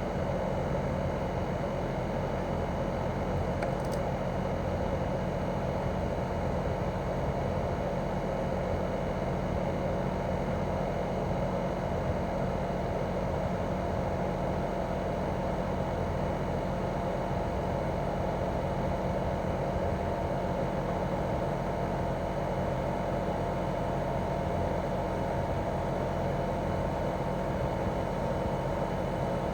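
Daikin R28RMV mini-split outdoor unit with a twin swing compressor, running steadily in heating mode: an even hum and fan whir with several steady tones above it.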